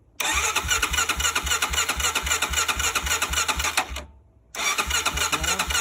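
Single-cylinder four-stroke engine of a freshly rebuilt Honda TRX 400 ATV being turned over on its electric starter in two spells, with a short pause between, pulsing evenly without catching.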